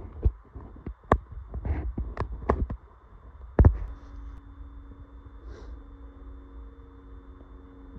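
A run of irregular knocks and thumps, the loudest about three and a half seconds in, then a faint steady hum.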